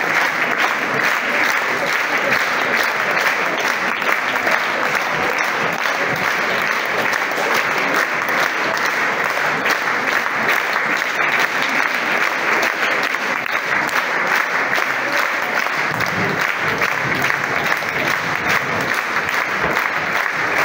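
Audience applauding, a dense, steady clapping that fills the hall.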